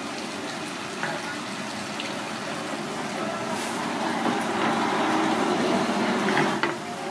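Running water, a steady rush that grows louder in the second half and drops back near the end.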